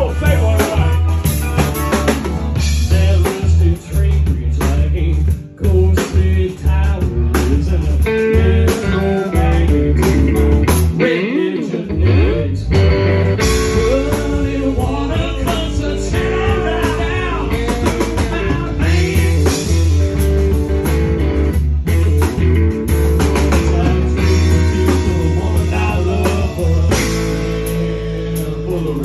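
Live blues-rock band playing: electric guitar, drum kit and a heavy bass line, with a harmonica blown into the vocal mic at the start.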